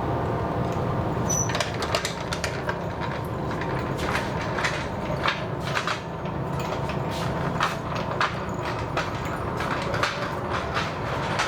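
Irregular clicks and knocks of hand work on metal and wood parts, starting about a second and a half in, over a steady low machine hum.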